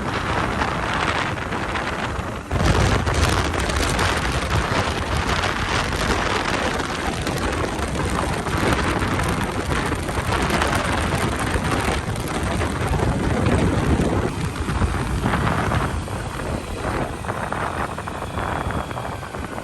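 Wind rushing over the microphone while riding a motorcycle, over a low rumble of engine and tyre noise; the rumble gets louder about two and a half seconds in.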